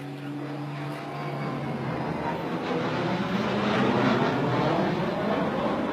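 T-50i Golden Eagle jet flying close by, its engine noise growing steadily louder with sweeping, swooshing shifts in pitch as it approaches.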